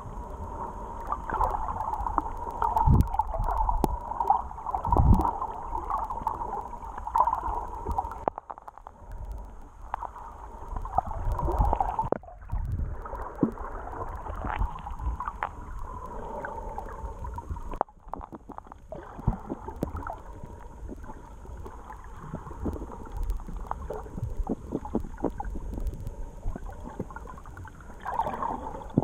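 Underwater sound through a GoPro's waterproof housing: muffled rushing of moving water with low rumbles and many small clicks and crackles. The sound drops out briefly twice.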